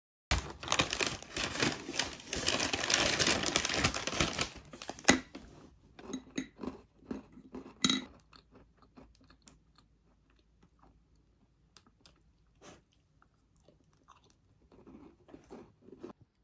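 Loud, dense close-up crackling and rustling for about five seconds, ending in a sharp click. Then scattered small clicks and crunches as flower-shaped cookies are picked off a plate and eaten.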